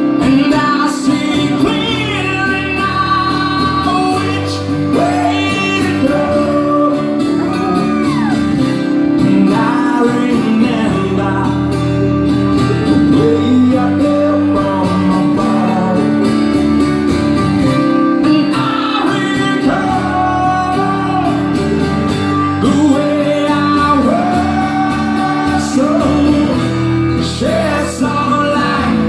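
Live music: a singer sustaining sung lines over guitar accompaniment.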